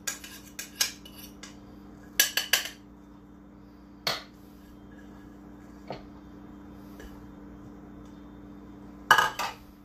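A spoon clinking and tapping against bowls while scooping garlic into a mixing bowl: scattered sharp clinks, with quick clusters about two seconds in and near the end, over a faint steady low hum.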